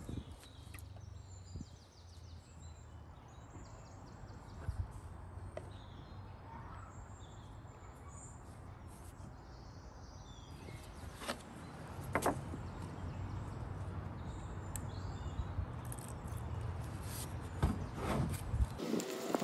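Steady low background rumble with faint bird chirps. A few light knocks sound about two-thirds of the way in and again near the end, as a gel stain can is knocked against a plastic tub and the stain is stirred with a wooden stick.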